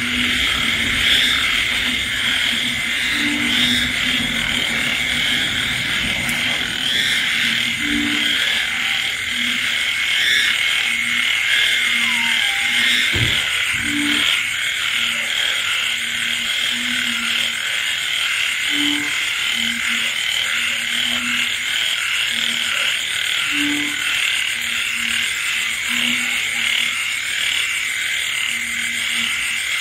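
Night chorus of frogs and insects in rain: a dense, steady trilling chorus, with short low frog croaks repeating irregularly about once a second throughout.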